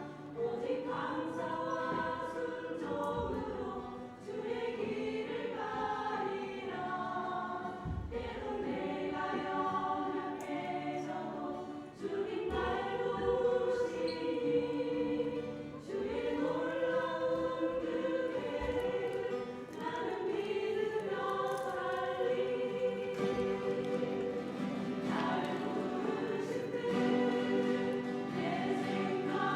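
Church choir singing a hymn, many voices together in held phrases that break off and start again every few seconds.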